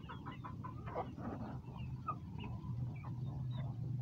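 A flock of hens clucking: many short, overlapping clucks from several birds.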